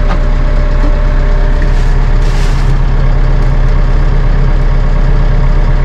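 Massey Ferguson 2850M compact tractor's diesel engine idling steadily, heard from inside the closed cab as a low, even hum. The cab is very quiet at idle, in the low 50s dB at the steering wheel.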